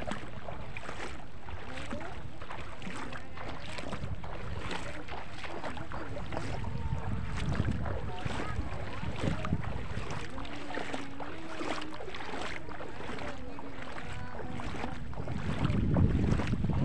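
Wind buffeting the microphone over a steady wash of outdoor noise, with splashing of feet wading through shallow water and faint distant voices. The wind gusts are strongest about two-thirds of the way through and again near the end.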